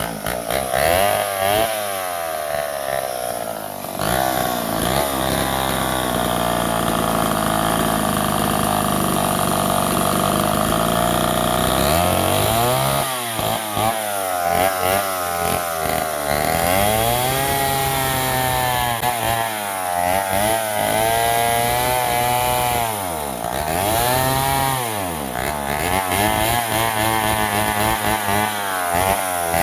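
Homelite 770D 95cc direct-drive two-stroke chainsaw running: it holds a steady, lower pitch for several seconds, then revs up and drops back again and again. The owner takes its uneven running for fuel starvation from stiff carburetor diaphragms.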